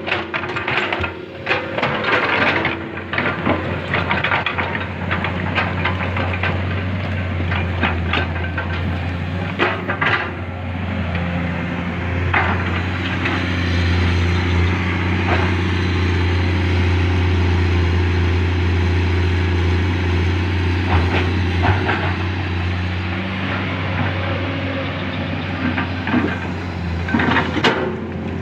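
Hydraulic excavator's diesel engine running steadily under working load, with scattered knocks and scrapes in the first ten seconds and again near the end.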